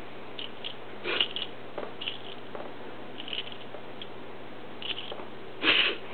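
Dog wheezing in a reverse sneeze: a string of short, noisy breaths at irregular intervals, the loudest near the end.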